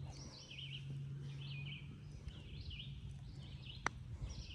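A bird repeats a short chirping phrase about once a second over a low steady rumble. About four seconds in there is a single sharp tap of a putter striking a golf ball.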